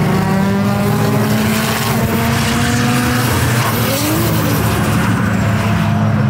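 Formula Drift car's engine held at high revs in a long drift, its pitch nearly steady with a brief rise and fall about four seconds in, over the rushing screech of spinning tyres.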